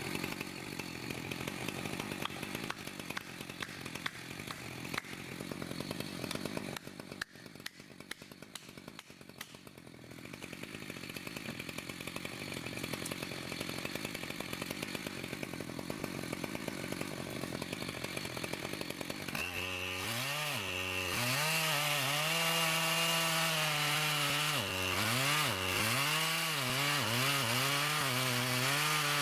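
Chainsaw running and cutting through a log, its engine pitch dipping and rising as the chain bites. It is louder and more distinctly pitched from about two-thirds of the way in.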